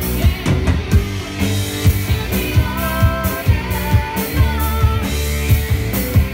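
Amplified live rock band playing: a drum kit keeps a steady beat under bass guitar and electric guitar, with a few held higher notes in the middle.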